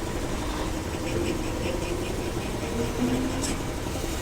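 Semi truck's diesel engine running steadily as the truck pulls forward off the block, with a brief sharp click near the end.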